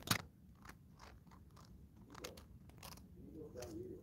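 Faint crisp crunches and clicks of dry twigs and plant debris as a young kitten noses and bites among them close to the microphone. A sharp click just after the start is the loudest.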